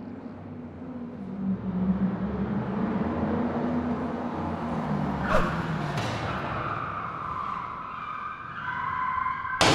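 Car sound effects: an engine running and building up, a sharp noise about five seconds in followed by a long high screech, and a sudden loud bang just before the end.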